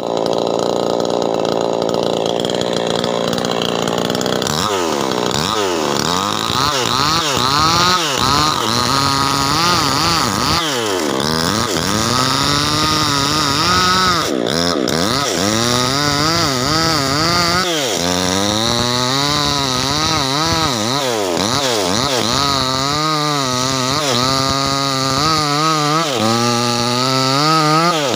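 Small two-stroke chainsaw warming up before work: it idles steadily for about four seconds, then its throttle is blipped again and again, the engine revving up and dropping back in quick repeated surges.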